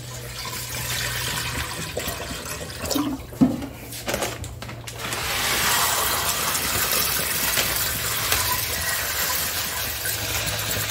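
Water running steadily from a tap into a kitchen sink, getting louder about five seconds in, over a low steady hum. A short knock comes about three and a half seconds in.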